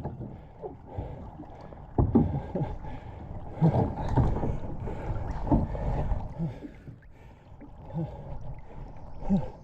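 Water sloshing and splashing around a capsized kayak as it is handled in the lake, with irregular knocks against the hull. The sound is muffled, with little above a low pitch range.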